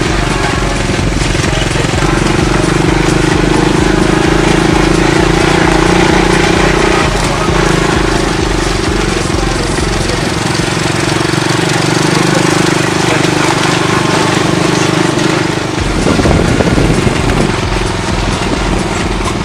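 ATV engine running loudly at a steady pitch with a fast pulsing chug, shifting briefly about sixteen seconds in, with a rough rushing noise over it.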